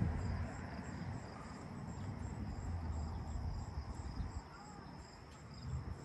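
Crickets chirping: a steady high trill pulsing about three times a second, over a low rumble that swells and fades.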